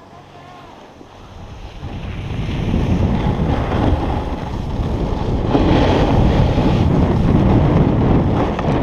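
Wind rushing over an action camera's microphone as a snowboard slides fast down groomed snow. The rush builds over the first few seconds and then holds loud and steady.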